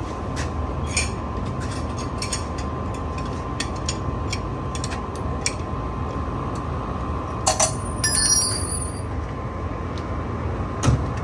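Small metal clicks and clinks of lock hardware and tools being handled, with a brief run of ringing metallic clinks about seven and a half seconds in and a thump near the end, over a steady background hum.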